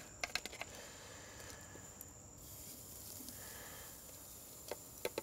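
Faint sizzling of skirt steak laid with metal tongs onto the grate of a very hot Big Green Egg kamado grill, the hiss growing about two seconds in. A few light clicks of the tongs against the metal come just after the start and twice near the end.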